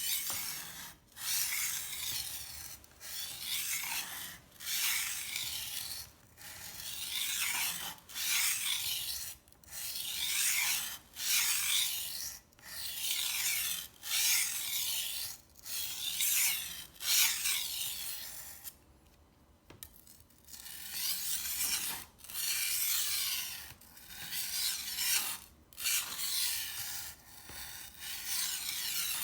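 Steel knife blade scraped back and forth across a wet, water-soaked medium-grit whetstone, sharpening the edge. A long run of even strokes, about one every second and a half, with a short pause about two-thirds through.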